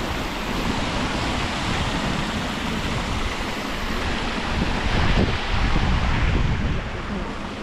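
Wind buffeting the camera's microphone: a steady rushing rumble that grows stronger about five seconds in, then eases.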